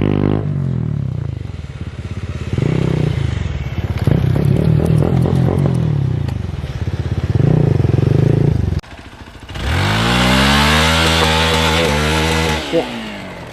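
Hero Xpulse 200 4V's single-cylinder engine through a Norifumi aftermarket exhaust, revving up and down repeatedly under throttle. About nine seconds in it drops away briefly, then revs hard with a steep rise and holds high.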